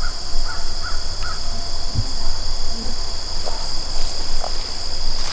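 Insects chorusing outdoors in a steady high-pitched buzz, with a few short chirps in the first second and a low rumble underneath.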